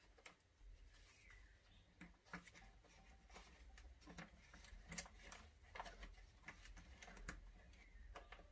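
Near silence with faint, scattered clicks and taps, about one a second, from small chainsaw carburettor-linkage parts being handled and fitted, over a low steady hum.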